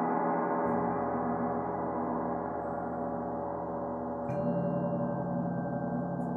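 Sustained, ringing meditation-music drone of layered steady tones. The low notes shift about a second in, and again with a light strike about four seconds in.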